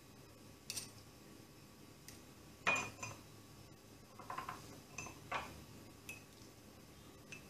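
Scattered light clinks of a metal spoon and a stainless-steel mesh strainer against a ceramic cup and glass mug, as steeped parsley is pressed and strained. The loudest clink comes about two and a half seconds in.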